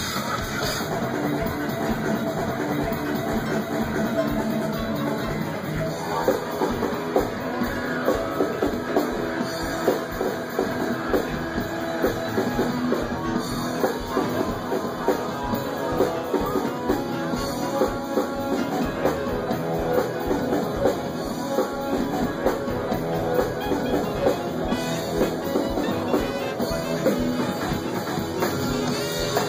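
Rock music: a band with drum kit and guitar, the drums playing a steady, prominent beat from about six seconds in.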